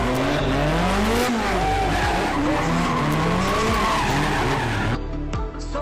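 A car's engine revving up and down over and over while its tyres squeal and skid through a drift. Near the end it cuts suddenly to music with a beat.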